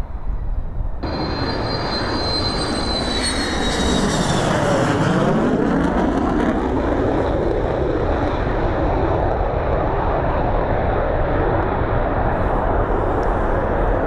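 Military jet on landing approach passing low overhead. A high turbine whine starts suddenly about a second in and falls in pitch, then gives way to a loud, steady jet rush that slowly grows louder.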